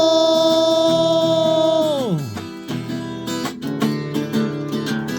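Acoustic guitar with a voice singing one long held note that slides down and ends about two seconds in. After that the guitar plays on alone with picked and strummed chords.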